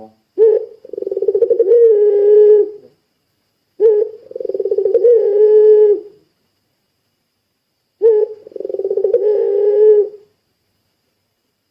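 A puter pelung dove cooing three long, rolling coos, each opening with a short clipped note and a pause of about a second or two between calls.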